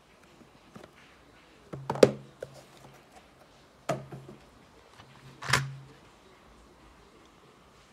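Handling noise from a plastic toy police car and its cardboard box: three short knocks and rubs, the loudest about two seconds in and a longer scraping one about five and a half seconds in.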